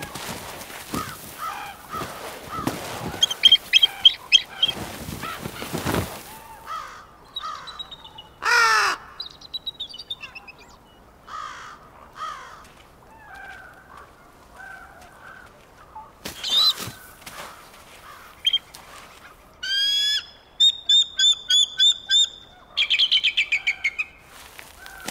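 Bald eagles calling: scattered high calls, a long falling squeal about a third of the way in, and rapid runs of short, high piping notes near the end. Rustling and a few knocks in the first quarter.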